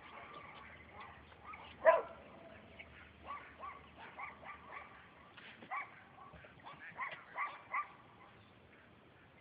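A dog barking over and over in short yips, with one much louder bark about two seconds in.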